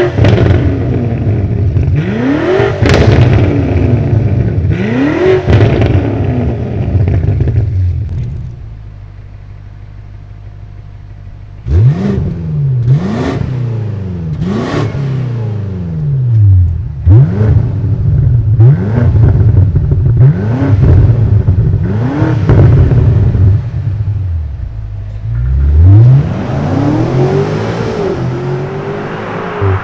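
BMW M5 S68 twin-turbo V8 through a DCE Parts aftermarket exhaust, revved in repeated short blips that rise and fall in pitch. It settles to a quieter steady idle for about three seconds, then starts again suddenly with quicker blips about once a second. Near the end it holds a longer rev.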